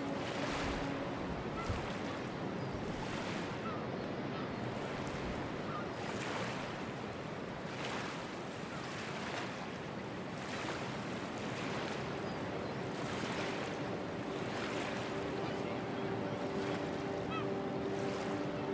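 Small sea waves breaking and washing up over sand and low rocks, the surf swelling and easing every second or two.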